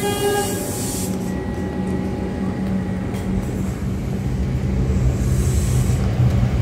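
Melbourne High Capacity Metro Train running slowly along the platform: a steady electric hum with rail rumble and a brief whine near the start.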